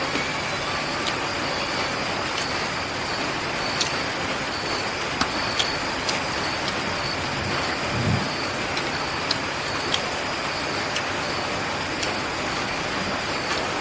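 Eating sounds: scattered small clicks and smacks and a low thud about eight seconds in, over a steady even hiss.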